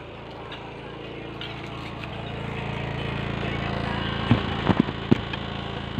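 A vehicle engine runs steadily and grows louder over the first few seconds. Four sharp knocks come close together about four to five seconds in.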